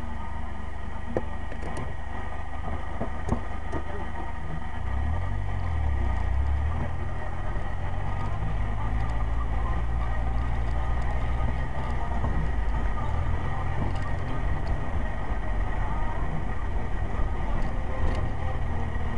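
Vehicle driving slowly on a dirt road, heard from inside the cabin: a steady low engine and road rumble that gets a little stronger about five seconds in, with a few scattered clicks and rattles.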